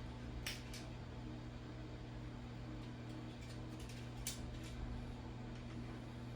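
Faint steady electrical hum with a few light clicks and clinks of kitchen utensils, two near the start and two about four seconds in.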